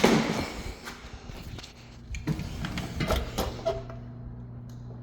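Hallway door being handled: a loud thud at the start, then a few scattered clicks and knocks, over a steady low electrical hum.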